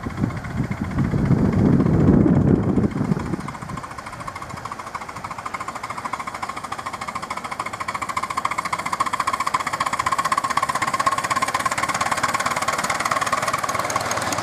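Miniature steam locomotive approaching and passing with its riding cars: a rapid, even rhythm of beats grows steadily louder, and a steady high-pitched squeal runs from about halfway through. A low rumble fills the first three seconds.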